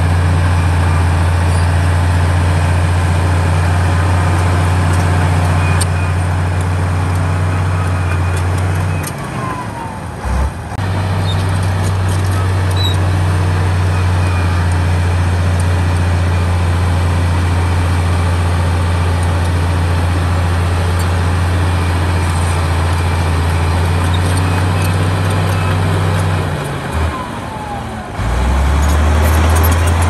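Komatsu D68E bulldozer's diesel engine running with a steady low drone, easing off for a couple of seconds twice, about nine seconds in and again about 27 seconds in, then picking back up.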